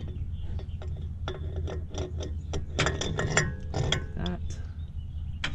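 Irregular metal clinks and clicks as an aluminium wheel spacer is slid onto the wheel studs of a truck hub and handled into place, over a steady low hum.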